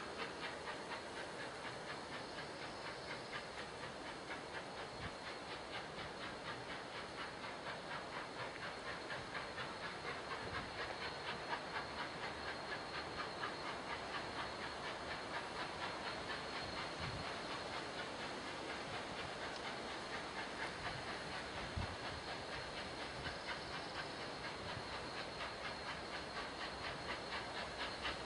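Union Pacific 844, an Alco-built 4-8-4 steam locomotive, approaching under steam: a quick, even beat of exhaust chuffs over a steady hiss of steam, getting slightly louder toward the end.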